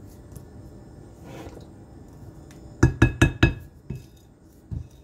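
An electric hand mixer hums low in muffin batter; about three seconds in, a utensil knocks sharply against the rim of the glass mixing bowl four times in quick succession, then twice more lightly, shaking off sour cream into the batter.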